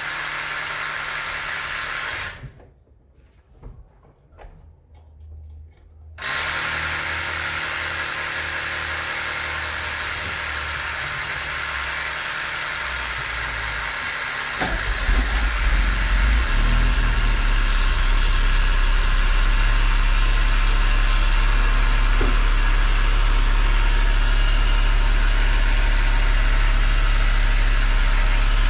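A 12 V portable tyre compressor runs steadily, cuts out for about four seconds and then starts again. About fifteen seconds in, a Corsa's 1.6 8-valve four-cylinder engine starts and settles into a steady idle under the running compressor.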